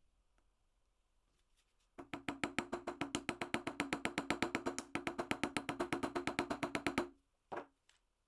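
Rapid light hammer taps on a small steel anvil, about ten a second for some five seconds, each with a short ringing tone, then stopping; one single knock follows. The taps peen over the end of the metal pin that holds a small wooden knob.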